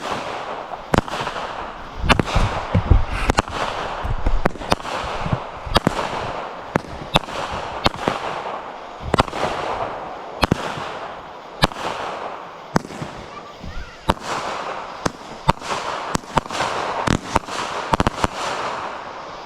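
A 20-shot consumer firework cake firing its shots one after another, a sharp bang roughly every second, with crackling and hissing between the reports.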